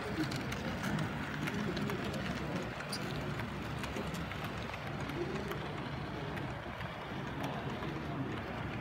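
Bachmann OO gauge model of a Maunsell N Class 2-6-0 steam locomotive running along a layout with its coaches: the mechanism running steadily, with small irregular clicks of the wheels over the track.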